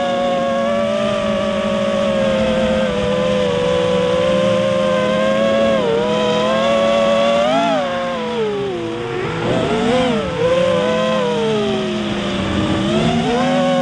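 Quadcopter electric motors and propellers whining, the pitch rising and falling with the throttle. The whine drops low twice, about two-thirds of the way through, then climbs back.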